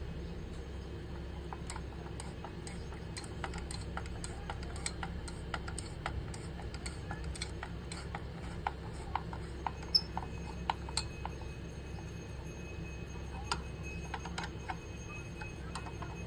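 Irregular light clicks and ticks of a screwdriver turning the mounting screws of an AMD stock CPU cooler on the motherboard, with one sharper click about ten seconds in. A steady low hum runs underneath.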